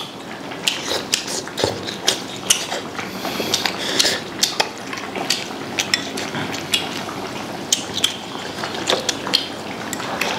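Close-up eating sounds: slurping soft strips of food from a small bowl of hot-pot broth, with a steady stream of short wet smacks and clicks from chewing and lips, and chopsticks tapping the ceramic bowl.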